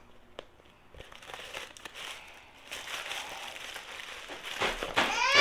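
Crinkling and rustling from handling a new pink mini satchel bag and its strap, with a few light clicks. A woman starts to speak near the end.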